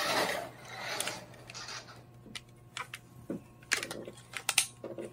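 Small electric motor of a toy RC buggy whirring briefly, then scattered light clicks and knocks as the buggy and its remote are handled and driven.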